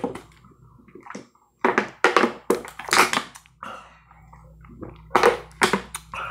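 A person drinking from a thin plastic water bottle: a run of gulps and crinkles of the plastic, in two groups, about two seconds in and again about five seconds in.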